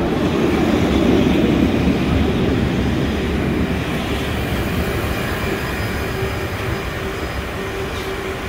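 An Alstom Citadis tram running on street track, its rumble loudest about a second in and then slowly easing off. Through the second half a low steady tone comes and goes in short stretches.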